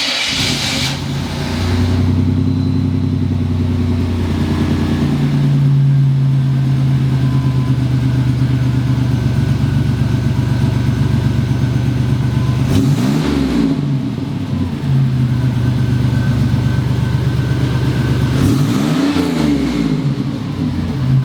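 Buick Grand National's turbocharged V6 just after a cold start, idling through a new Pypes exhaust with a deep little rumble. The idle speed steps up about four seconds in, and the engine is revved briefly twice, about 13 and 19 seconds in.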